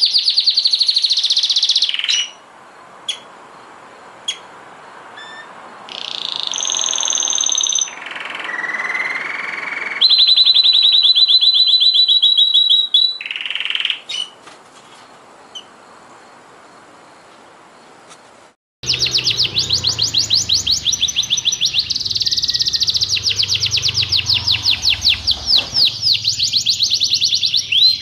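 Domestic canaries singing: fast trills and whistled rolls broken by short pauses. After a sudden cut about 19 seconds in, a continuous run of rapid trills plays over a low hum.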